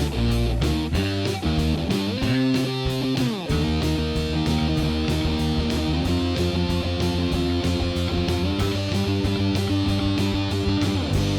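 Background music: a guitar-led track over a steady beat of about four strokes a second, with a sliding pitch bend about three seconds in.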